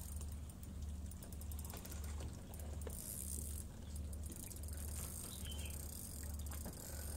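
Spinning fishing reel clicking and ratcheting as a hooked fish is played and reeled in. Underneath runs a steady low hum that pulses about twice a second.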